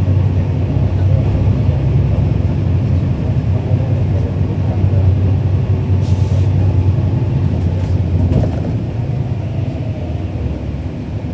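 Cummins ISL9 diesel engine of a 2011 NABI 40-SFW transit bus running as the bus travels, heard from inside the cabin as a steady low drone. A short hiss of air comes about six seconds in, and the drone eases slightly near the end.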